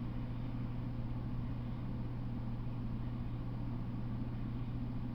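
A steady low hum over a constant hiss, unchanging throughout.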